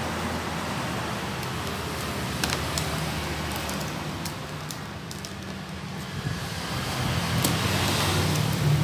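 Steady road-traffic noise with a low hum that grows a little louder near the end, with a few faint clicks.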